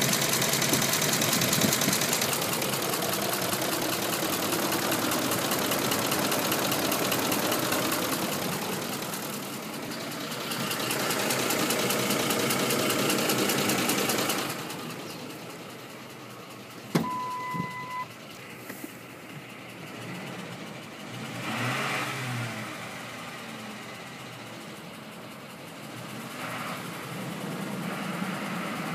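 Ford 5.4-litre V8 of a 2004 F-150 running, with the typical 5.4 cam-phaser noise and a ticking knock that the owner suspects is an exhaust leak or failing cam phasers. The engine is louder for the first half, then drops off and rises briefly again a few seconds later. About halfway through there is a sharp click and a short beep.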